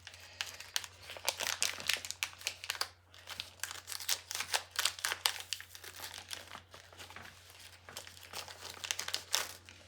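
Crinkly toy packaging being handled and unwrapped, a rapid irregular crackling and rustling with occasional tearing, as a folded poster and small packets are opened.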